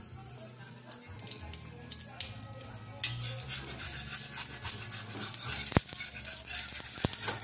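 Pancake batter frying in a metal wok, the sizzle growing stronger about three seconds in as the spatula goes under it, with a metal spatula knocking against the wok twice near the end. Background music with a low bass line plays underneath.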